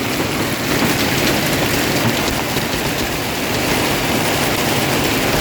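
Heavy downpour, possibly with hail, pelting the roof and windows of a parked car, heard from inside the cabin as a loud, steady hiss and patter.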